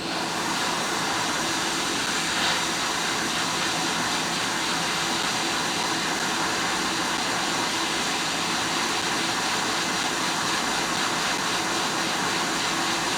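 Quick 861DW hot air rework station blowing a steady hiss of hot air, set to 380 °C with airflow 60, heating the iPhone 7 audio IC to desolder it.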